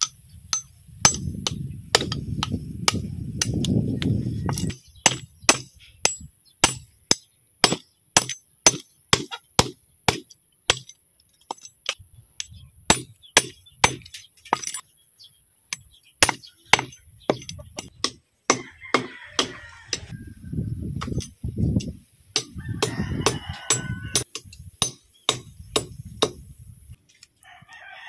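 Bolo knife chopping the pointed tips off horn snail shells on a wooden block: a run of sharp knocks, about two a second, with a glassy chink as blade meets shell.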